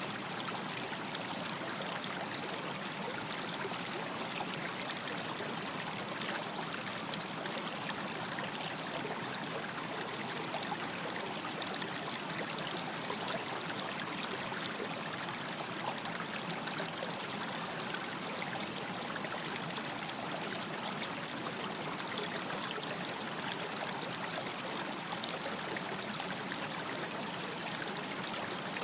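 Small stream running steadily, water trickling and babbling over stones.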